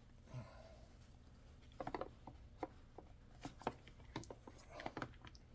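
Small chainsaw parts being handled by hand: scattered light clicks and taps of plastic and metal, starting about two seconds in.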